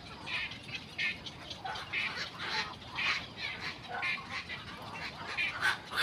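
Black-crowned night herons calling at their nests: short calls repeated about twice a second.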